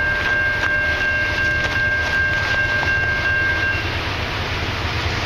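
Horn of an approaching diesel locomotive sounding one long held chord that cuts off about four seconds in, over the steady low rumble of the train.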